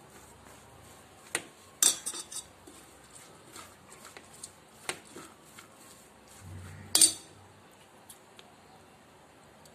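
Metal spoon stirring shredded cabbage and carrot in a stainless steel bowl, scraping and clinking against the bowl, with a few sharper clanks; the loudest comes about seven seconds in.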